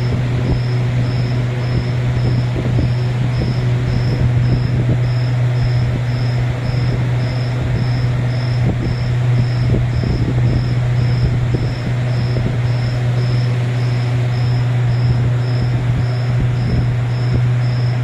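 A steady, loud low hum with crackling noise over it, and a faint high-pitched tone pulsing about three times a second.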